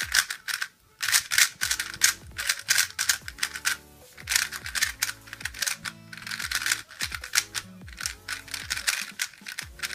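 Moyu Weilong GTS 3x3 speed cube being turned fast, its plastic layers clacking in quick runs of turns with a few brief pauses, the first about a second in.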